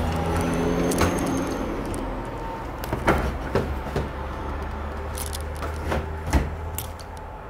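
Scattered sharp knocks and clicks, about seven of them, over a low steady rumble that fades near the end.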